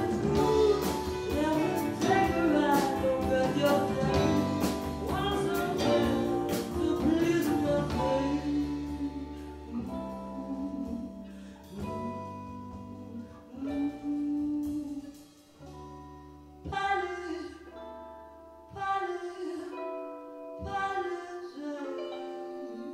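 Live band playing a song with a female lead vocal, drums and guitars. About eight seconds in the drums drop out, and the song goes on more quietly in held notes and separate phrases.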